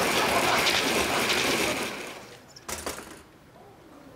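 Countertop blender running, pureeing tomatoes, lemon and water in its glass jug, then winding down and stopping about two seconds in. A single short knock follows a little later.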